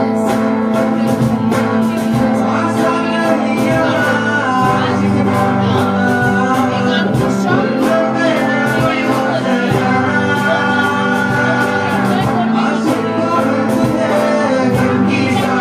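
Live Bollywood song by a small acoustic band: a male voice singing over strummed acoustic and electric guitars, with a steady cajon beat.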